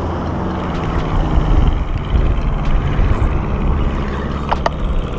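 Wind rumbling on the microphone over the wash of ocean surf, with a couple of short clicks about four and a half seconds in.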